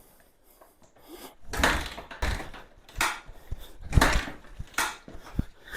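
1978 Kawasaki KL250's single-cylinder four-stroke engine kicked over by hand about five times with the throttle wide open, turning over without firing during a compression test. Each kick is a short burst of cranking, the first coming about a second and a half in.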